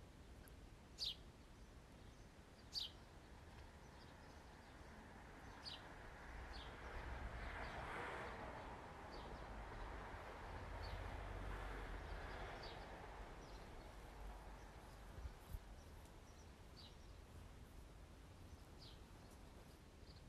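Quiet background with occasional short, high bird chirps. The two clearest come in the first few seconds and fainter ones follow. In the middle a soft swell of low noise rises and fades away.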